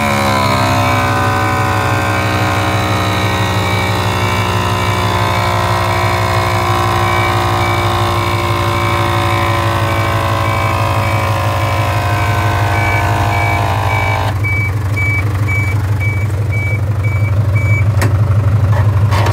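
Mitsubishi Canter fire truck's engine running with its power-take-off fire pump engaged: a whine that dips in pitch as it comes in, runs steady, then cuts off suddenly about 14 seconds in. A warning beeper sounds about twice a second until shortly before the end, when a lever clicks.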